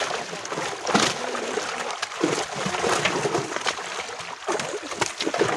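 Large carp thrashing in a gathered seine net in shallow pond water, giving irregular splashes and sloshing.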